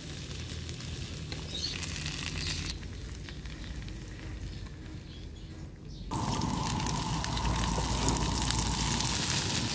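Faint kitchen noise with a short hiss about two seconds in, then a sudden change about six seconds in to French beans frying in oil in a pan: a steady, louder sizzle with a faint whine under it.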